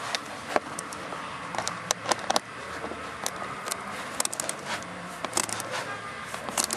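Irregular sharp clicks and light scrapes of a socket wrench on an extension working a small screw loose, some of the clicks coming in short clusters.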